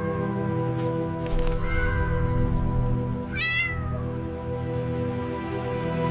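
A cat meowing twice, about two seconds apart, over background music with steady held notes.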